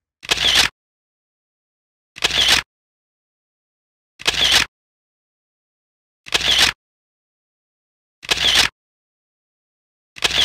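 A short rushing whoosh, repeated about every two seconds. Each one swells and then cuts off abruptly, with silence in between.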